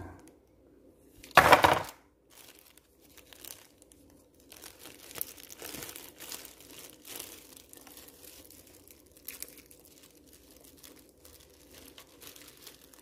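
Packaging being handled in a cardboard box: one loud crinkle about a second and a half in, then scattered soft rustles and light clicks.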